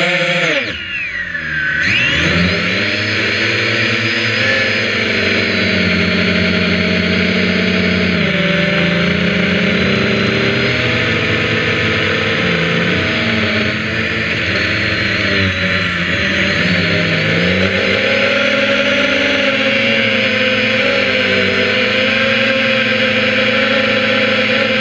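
Multirotor drone's electric motors and propellers whining loudly, heard from a camera mounted on the drone, the pitch shifting up and down with throttle. About a second in, the motors throttle right down and the pitch falls steeply, then they spool back up.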